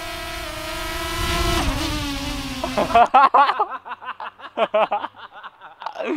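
Small quadcopter drone's propellers whining overhead at a steady pitch, then sinking in pitch over about a second and a half as the drone slows and descends. About three seconds in, it gives way abruptly to people laughing in short bursts.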